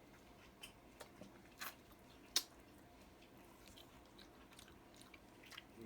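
Faint chewing of fried chicken wings, with a few sharp crunches; the loudest comes about two and a half seconds in.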